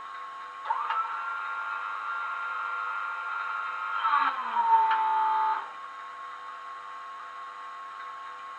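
Class 87 electric locomotive sound from a model's DCC sound decoder, played through the small onboard speaker: a steady electric hum, and about a second in a two-tone horn sounds, a long high note followed by a shorter lower note that stops around halfway through.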